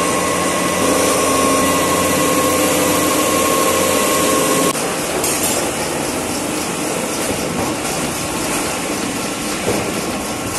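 Ice-factory machinery running loudly and steadily, a machine hum with several steady tones over a rough mechanical noise; about halfway through it cuts to a rougher, noisier grinding machine sound.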